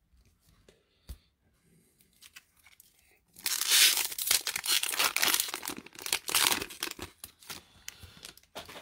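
Foil wrapper of a Magic: The Gathering Theros Beyond Death booster pack being torn open and crinkled by hand. A loud stretch of ripping and crackling starts about three and a half seconds in and lasts about four seconds, after a few faint handling clicks.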